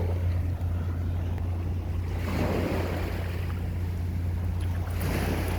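Ocean waves washing onto a beach, two swells of surf about two seconds in and near the end, over a steady low rumble.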